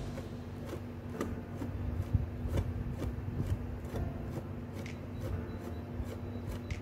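Small metal palette knife scraping and tapping against a glass bowl while working thick putty paste: a run of irregular small clicks and scrapes, over a steady low hum.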